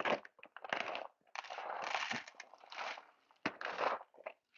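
Whole coffee beans pouring from a bag into the bean hopper of a super-automatic espresso machine, a rough rattling patter that comes in several pours with small clicks of beans on the hopper.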